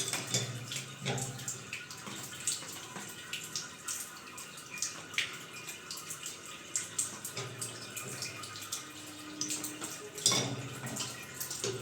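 Scattered light clicks and knocks of wall-mixer pipe fittings being handled and fitted, over a faint steady hiss.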